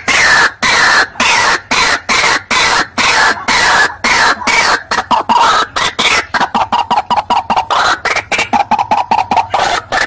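White-breasted waterhen (ruak-ruak) calls from a bird-lure recording: loud, harsh repeated notes, about three a second and falling in pitch, that speed up to about five a second at a steadier pitch after about six seconds.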